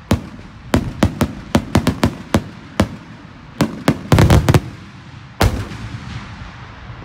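Daytime aerial firework shell breaking into salute reports: a rapid, irregular string of well over a dozen sharp bangs, bunching close together about four seconds in. One last bang follows about five and a half seconds in, with a long rolling echo.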